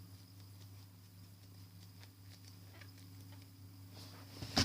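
Faint scattered ticks of a foam squishy toy being handled, over a steady low electrical hum, with one sharp click near the end.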